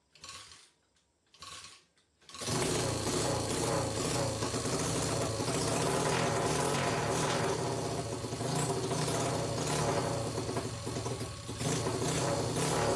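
SSR 125cc dirt bike's single-cylinder four-stroke engine kicked over, giving two short bursts before it catches about two seconds in and then runs steadily. This is its first start after a full rebuild, with a carburetor that is leaking fuel from the overflow and still needs adjusting.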